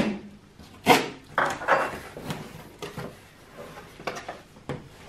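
Cardboard shipping box being opened: a few sharp scrapes and thumps as the taped flaps are torn and pushed open, the loudest about a second in, then fainter rustling of the plastic-wrapped clothing inside.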